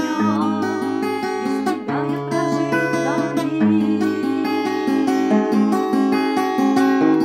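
Nylon-string classical guitar with a capo playing an instrumental passage between verses: chords picked in a steady rhythm, the bass note changing every second or two.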